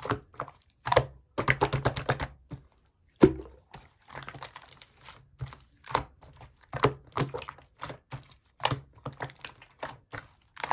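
Hands kneading and pressing mixed slime, giving quick runs of wet clicks and pops in irregular bursts, with one sharper snap about three seconds in.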